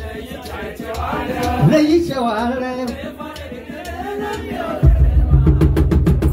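Live Ethiopian azmari music: a voice sings a wavering line over light accompaniment. About five seconds in, the hand drums and the band come in loud with a quick beat.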